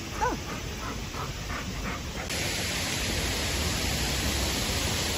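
Steady rushing of a waterfall, many thin streams pouring down a cliff face, setting in sharply about two seconds in; before that, a quieter open-air background.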